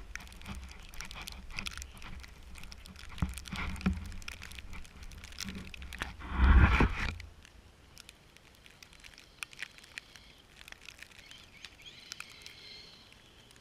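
Traxxas Summit RC crawler driving through snow: irregular crunching and crackling with a low rumble. The loudest surge comes about six and a half seconds in, and after it only faint crackling is left.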